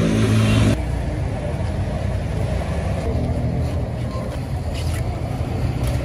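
Motor vehicle engine running steadily amid street traffic noise, with an abrupt change in the sound under a second in.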